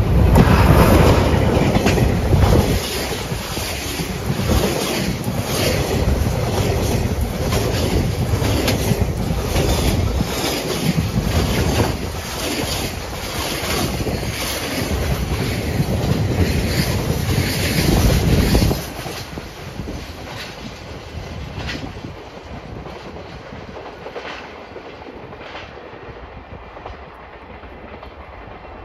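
JR Freight DF200 diesel-electric locomotive passing close by with its engine running loud and low, followed by container wagons clattering over the rail joints in a steady clickety-clack. The noise drops sharply about 19 seconds in as the last wagon passes, and the rumble fades away.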